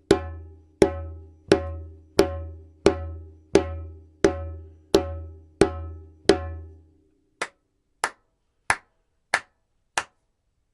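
Djembe played with flat-hand open tones, one stroke at a time, about three every two seconds, each ringing with a low boom and a woody decay. About seven seconds in come four sharper, drier strikes without the low ring.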